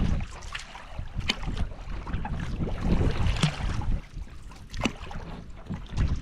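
Canoe on open water with wind rumbling on the microphone and water splashing, broken by a few sharp clicks about a second, three and a half and five seconds in.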